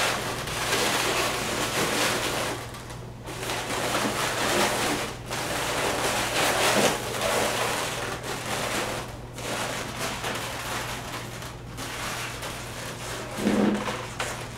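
Latex twisting balloons being handled, rubbed and twisted together by hand, a rustling, rubbing noise that comes in stretches with short pauses between them, over a steady low hum.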